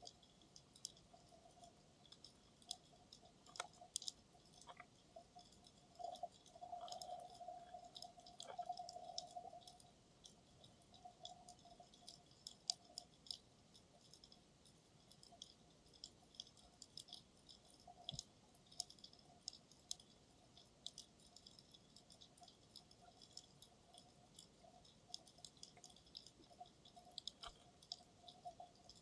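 Faint underwater ambience picked up through a camera's dive housing: scattered small clicks and crackles throughout, with a faint steady hum that swells for a few seconds from about six seconds in.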